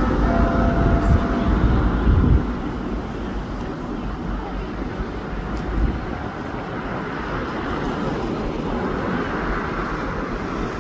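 Steady city street and traffic noise, with a heavy low rumble that stops about two seconds in. The last of a bell's ring, between Big Ben's strikes, fades out near the start.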